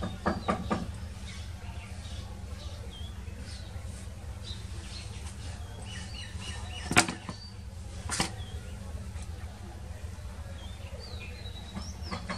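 Small birds chirping on and off over a steady low rumble. A quick run of ticks stops about a second in, and two sharp knocks come about seven and eight seconds in, the first of them the loudest sound.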